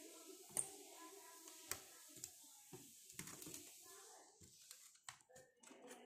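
Scattered sharp clicks and light handling noises from hands working on a copier control panel's sheet-metal frame and wiring harness, the loudest click about half a second in. Faint voices sit in the background.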